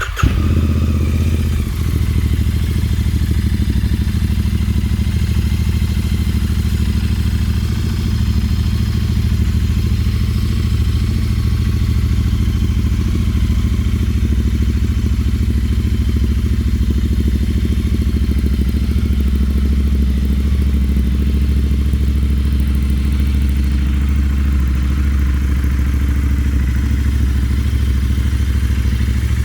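Royal Enfield Interceptor 650 parallel-twin engine, breathing through full stainless-steel aftermarket headers and Powerage exhausts, catching at the very start and then settling into a steady idle.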